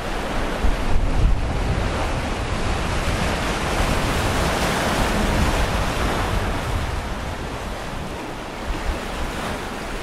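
Rushing, foaming wake and breaking seas alongside a 50-foot cruising catamaran under sail, a steady wash that swells in the middle and eases a little near the end, with wind rumbling on the microphone.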